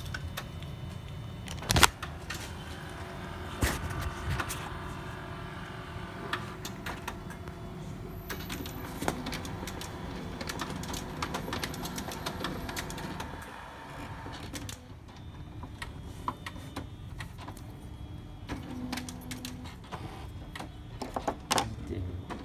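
HP Color LaserJet Pro MFP M277fw running its power-up cycle: a sharp click about two seconds in, then a steady motor whine with clicks for about ten seconds, dropping to quieter mechanical clicking near the end.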